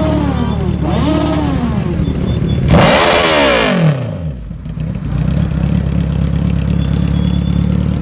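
Suzuki Hayabusa's inline-four engine idling through its exhaust, blipped twice, then revved hard once about three seconds in, the pitch falling back to a steady idle.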